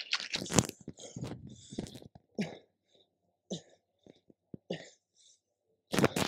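A man's short, forceful breaths and grunts of effort while rowing a heavy dumbbell one-armed, one about every second. They grow sparse through the middle and come louder again near the end.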